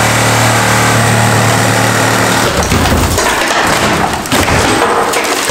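A DeWalt cordless reciprocating saw runs steadily, cutting into a wooden stair landing, and stops about two and a half seconds in. Several heavy thumps follow as a boot kicks the loosened landing.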